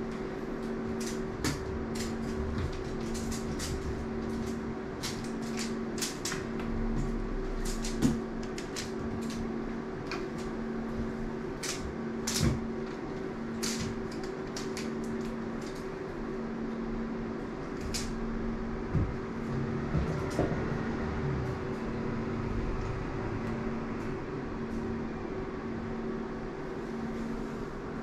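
A steady low machine hum with a faint regular pulse, with scattered light clicks and taps throughout.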